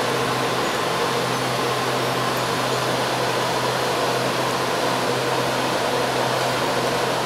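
Taiwan Railways EMU700 electric commuter train standing at the platform with its doors open, its air-conditioning and equipment fans running with a steady whir and a low hum.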